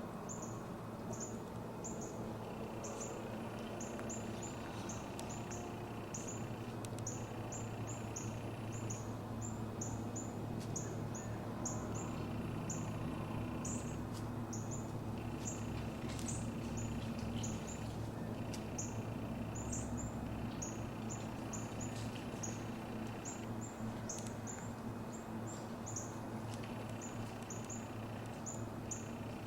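Small birds chirping, short high-pitched calls several times a second, over a steady low background noise.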